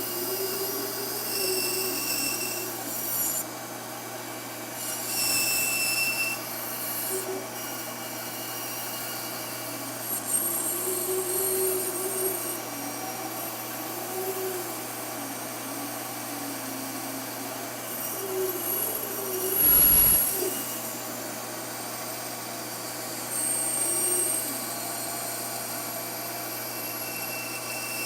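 Hand-tool work on wood: rubbing and sawing with wavering squeaky tones, and one sharp knock about twenty seconds in.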